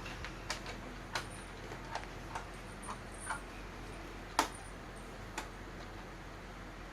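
Plastic teeth of a Crazy Dino biting-dinosaur toy being pressed down one after another, giving about seven irregular clicks, the loudest about four and a half seconds in.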